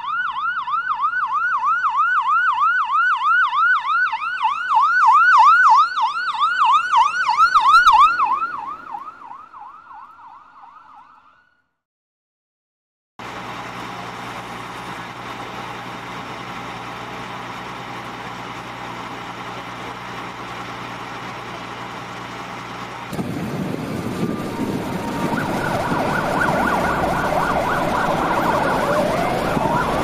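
Emergency-vehicle siren sounding a fast yelp, rising and falling about four times a second, that fades away about ten seconds in. After a brief silence come steady street noise and a low engine hum. About two-thirds of the way through, a siren joins in, sounding faintly over louder traffic, with a slow wail near the end.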